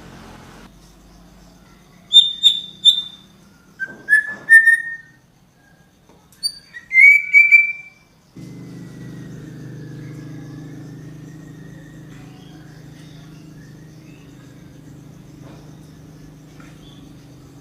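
A bird singing loud, clear whistled phrases in three short groups of notes, some rising, between about two and eight seconds in. A steady low hum starts abruptly after the song.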